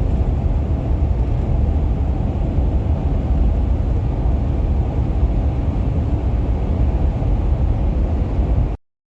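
Steady low rumbling noise that cuts off abruptly near the end.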